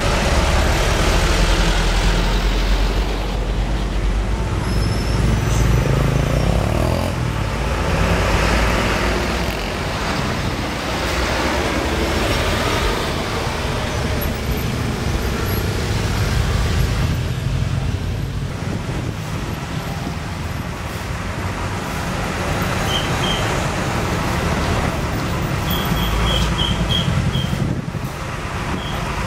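Diesel buses and a truck running in busy street traffic, a steady low engine rumble over traffic noise. A few short high beeps sound near the end.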